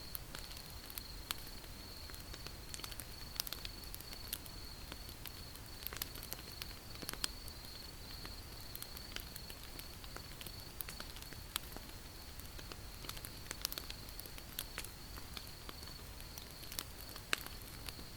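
Wood fire crackling, with irregular sharp snaps and pops of varying loudness. Underneath runs a steady, faint high-pitched whine.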